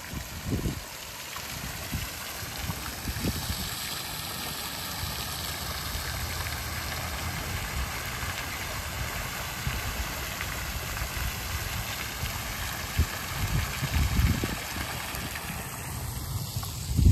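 Steady rush of water, with low wind buffeting on the microphone near the start and again near the end.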